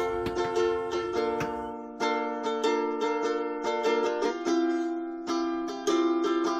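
Background music: a bright, quick plucked-string melody in the style of a ukulele, with many short notes a second and no singing.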